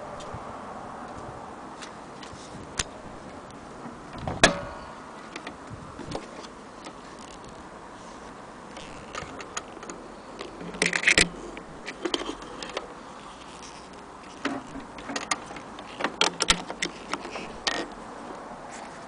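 Clicks and knocks of a sewing machine's plastic power plug and cord being handled and fitted at its electric motor: a sharp click about four seconds in, then bursts of clicking around eleven seconds and again near the end, over a steady background hiss. The machine's motor is not running.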